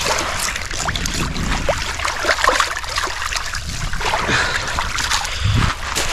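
Small waves washing and lapping over a pebble shore at the water's edge, a continuous hiss with many short clicks.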